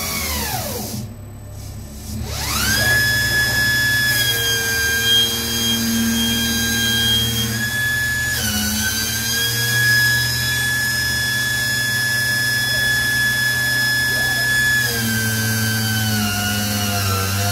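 Robotic belt grinding: a belt grinder's abrasive belt and drive whining as the robot works a metal part against it. The whine falls steeply and almost stops at the start, climbs back up about two to three seconds in, and then runs steadily, with a brief dip about eight seconds in.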